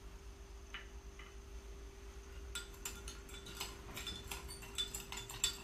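Metal spoon clinking rapidly against a dish while stirring, starting about halfway through, dissolving brown sugar into lemon juice and a little water.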